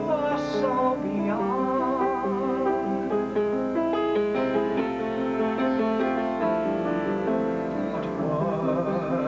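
Piano playing accompaniment under a male cabaret singer: a sung note with vibrato at the start gives way to a piano passage, and the voice comes back in near the end.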